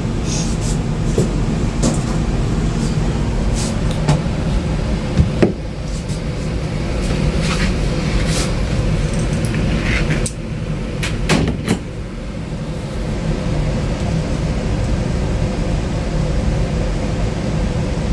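Scattered clicks and knocks of hands and tools working at a dryer's power-cord terminal block, fitting the ground wire, over a steady low rumble.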